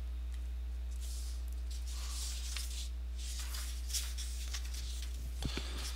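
Steady low electrical hum from the recording setup, with a few soft rustles and faint computer mouse clicks about four and five and a half seconds in.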